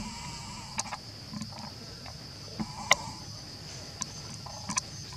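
Steady high-pitched drone of insects such as cicadas or crickets, broken by a few sharp clicks, the loudest about three seconds in.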